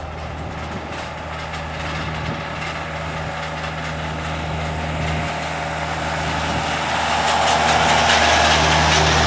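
Airbus A321-231 jet airliner's twin IAE V2500 turbofans at takeoff power as it lifts off and climbs out: steady jet engine noise with a low hum underneath, growing louder and loudest near the end.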